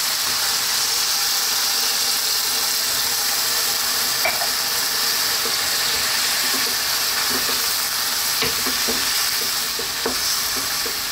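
Stir-fried vegetables sizzling in a wok with vegetable stock just added, a steady hiss. A wooden spatula scrapes and knocks against the pan as it stirs, more busily in the second half.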